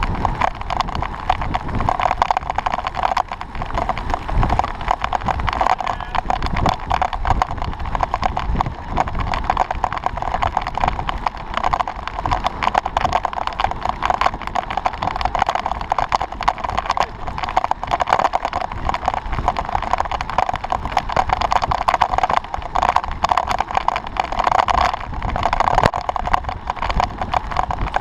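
Wind rush and road vibration on a camera riding on a road bike at speed: a steady, muffled rushing noise with a constant patter of small rattles and knocks from the road surface.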